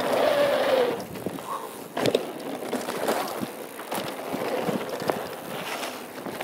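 Norco Truax hardtail mountain bike rolling fast down a loose dirt-and-gravel trail: steady tyre noise on the gravel, with frequent rattles and knocks from the bike over bumps, the sharpest about two seconds in and again about five seconds in.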